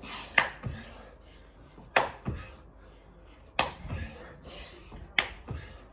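Clapping press-ups from the knees: four sharp hand claps about a second and a half apart, each followed shortly by a dull thud as the hands land back on the towel.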